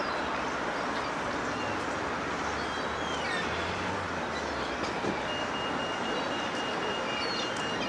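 Seaside beach ambience: a steady wash of noise from the sea and seafront, with short high gull calls here and there. A steady high-pitched tone starts about five seconds in and holds.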